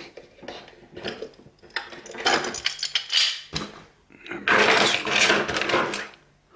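Small metal clinks and rattles of a picked-open lever padlock and its picking tools being handled, with a louder stretch of scraping and handling noise from about four and a half seconds in.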